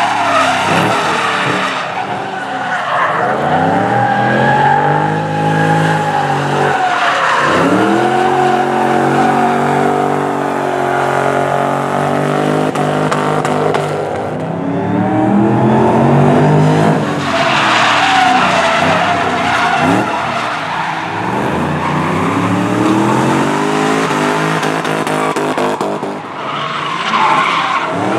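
Supercharged Ford Mustang GT V8 with a Borla exhaust drifting: the engine revs high and drops off again and again as the driver works the throttle, with the tyres squealing and skidding.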